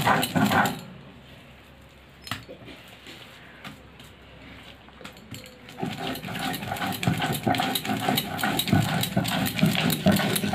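Stone roller of a shil-nora grinding slab rubbed back and forth over fried peanuts, grinding them to a paste in quick rhythmic scraping strokes. The strokes stop about a second in, with two light knocks during the lull, and start again around six seconds in, stopping just before the end.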